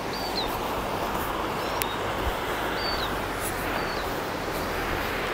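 Steady rushing of a river running over rapids, with a bird chirping briefly a few times above it.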